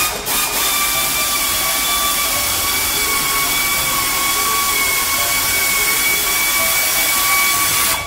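A machine running steadily with a high whine over a loud hiss, cutting off sharply near the end.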